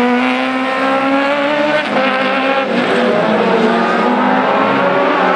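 Single-seater Formula Challenge race car's engine at high revs. Its pitch climbs, breaks off about two seconds in and falls, then holds lower and climbs again near the end.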